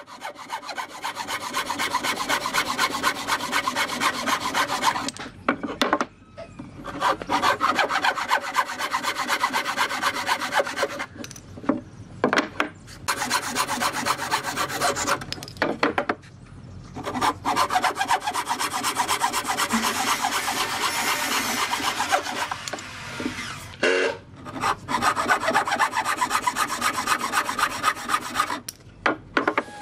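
Hand frame saw cutting across a clamped stack of wooden boards: a rapid rasping of saw teeth in wood, in runs of several seconds broken by a few short pauses.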